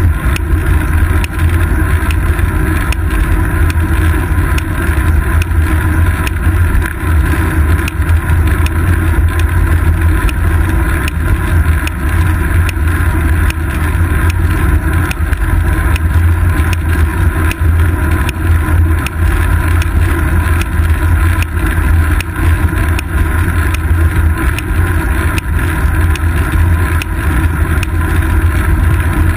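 Steady low rumble of a road bicycle riding along, picked up by a seat-post-mounted GoPro Hero 2: wind on the camera and road vibration coming up through the frame, with frequent small ticks and knocks from the road surface.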